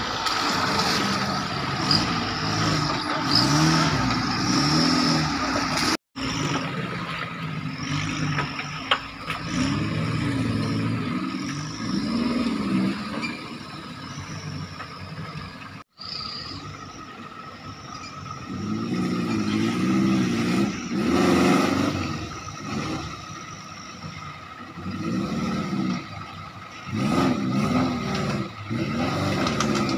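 Engines of off-road 4x4s, Suzuki Katana jeeps among them, revving up and down in repeated bursts as they crawl over rocks and through a shallow stream. The sound breaks off for an instant twice.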